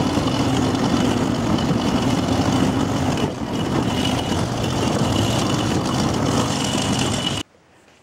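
Sidecar motorcycle's engine running steadily while riding over a gravel track, mixed with wind and road noise. The sound cuts off suddenly near the end.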